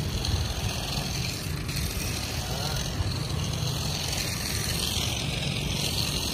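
Cordless battery mini chainsaw, fitted with its larger battery pack, running steadily with the chain spinning as it is worked through weeds and small stems.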